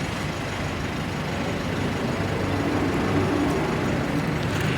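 Steady roadside traffic noise, with a heavy vehicle's engine running that swells slightly in the middle.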